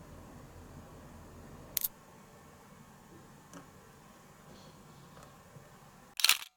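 A sharp click about two seconds in, a couple of faint ticks, and a short burst of louder clicks near the end, over a low steady hum.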